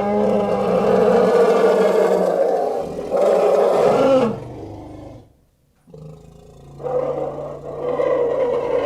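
A dubbed-in monster roar sound effect for a triceratops, two long, loud, pitched roars: the first fades out a little after four seconds in, and after a short pause a second one starts low and swells up near the end.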